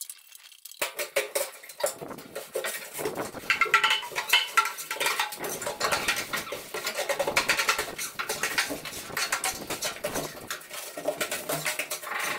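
Shovels scraping along a truck bed and crushed marble aggregate sliding and rattling down onto a pile, as a steady run of irregular scrapes and clinks.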